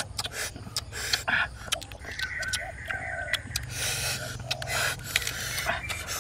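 Someone eating cooked crab: short crunching clicks of shell with breathy chewing and mouth sounds.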